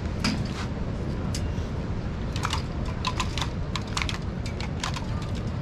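Crab and wire crab cage giving off irregular sharp clicks and clacks as the catch is handled, about a dozen in all and bunched after the two-second mark, over a steady low rumble.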